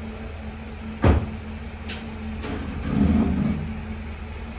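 Pickup truck idling steadily, with one sharp clunk about a second in and a short swell in the engine sound around three seconds in as the truck is about to back away from the dismounted plow.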